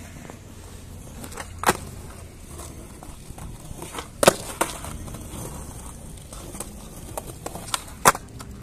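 BMX bike being ridden, with a handful of sharp clacks of the bike striking the ground over a steady low rumble. The loudest clack comes about four seconds in.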